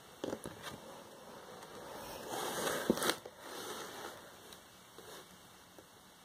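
Paper book being handled and a page turned: a few soft clicks, then a rustle with a sharper snap about three seconds in.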